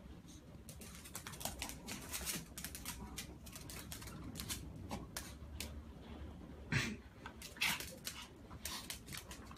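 Claws scrabbling and tapping on a tile floor as a cat and a dog wrestle over a toy: a quick, irregular run of clicks and scratches, with a louder knock about seven seconds in.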